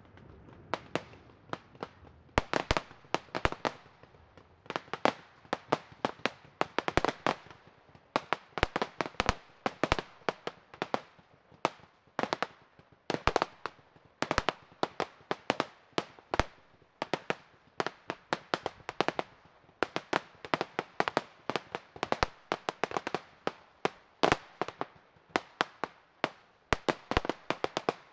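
Fireworks: a fast barrage of small aerial shells bursting, several sharp bangs a second in clusters with brief gaps between them.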